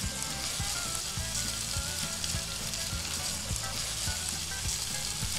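Crumbled sausage and bacon frying in a cast-iron skillet: a steady, even sizzle.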